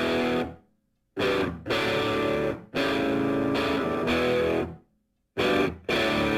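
Electric guitar music with distortion, played in short chunks that cut off abruptly into dead silence between them.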